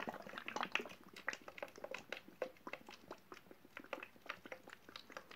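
Water draining through a washer from one plastic bottle into another as a tornado-in-a-bottle vortex. It makes a quiet, irregular gurgle of many small pops and clicks as air bubbles up through the neck.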